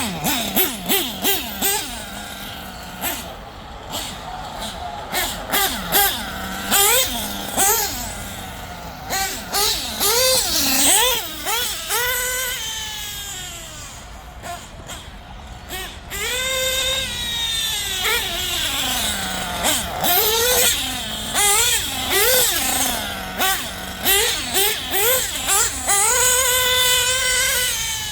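Small nitro engine of an LRP RC buggy revving up and down over and over as the buggy drives, its high-pitched whine rising and falling, running with its exhaust leak fixed.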